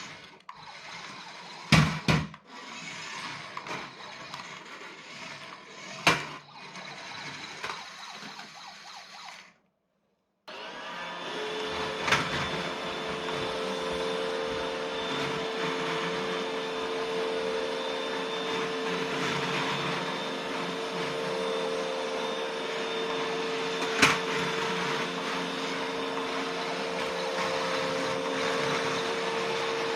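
Roomba robot vacuum running with a steady motor whir, with a few sharp knocks. The sound cuts out for about a second some ten seconds in, then resumes steadier, with a constant hum tone.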